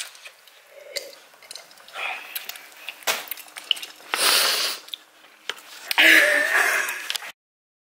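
A person drinking from a ceramic mug: breathy sips and exhales, the loudest about four and six seconds in, with a few small knocks from handling the mug.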